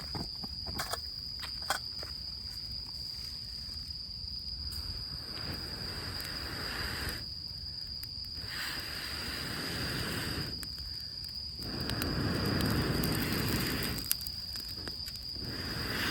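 A steady high cricket trill goes on throughout, with a few sharp crackles from the wet-wood campfire in the first two seconds. Then come four long rushes of air, each about two seconds, with short pauses between them: breath blown into the fire to fan it.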